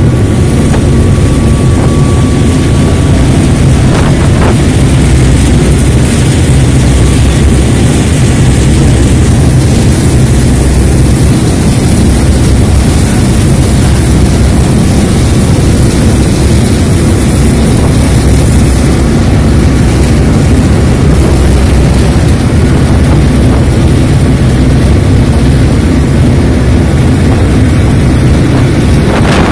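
Passenger ferry underway at cruising speed: a loud, steady low engine drone mixed with the rush of wind and water.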